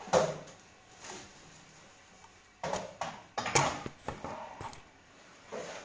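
Scattered knocks and rustles of a handheld phone being carried and handled, with a cluster of louder clatters just past the middle.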